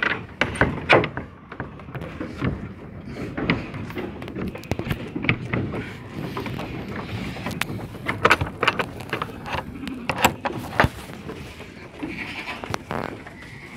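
Sheep milling in a pen on a slatted wooden floor: repeated sharp knocks and clatters of hooves and bodies against the slats and rails, with an occasional bleat, one near the end.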